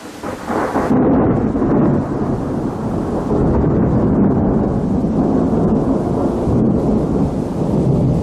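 Thunder rumbling: a long, low roll that builds up within the first second and stays loud, easing slightly near the end.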